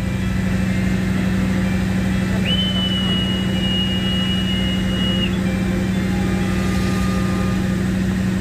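Conductor's whistle blown in one long, steady blast of about three seconds, signal 41, the conductor's all-clear for the train to depart. Under it the train's diesel engine idles with a steady low hum.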